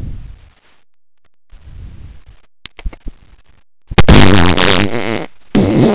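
Fart noises: a low one trailing off at the start and a softer one about a second and a half in, then from about four seconds a very loud, long one that wavers in pitch, breaks off briefly and starts again near the end.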